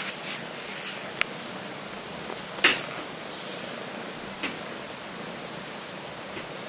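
Steady hiss of a small camera's microphone in a quiet room, broken by a few short, sharp clicks, the loudest about two and a half seconds in.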